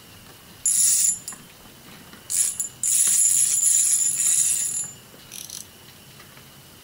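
Small spinning fishing reel being cranked in short spells, a whirring ratchet-like clicking; the longest spell, about two seconds, comes in the middle, with shorter ones before and after.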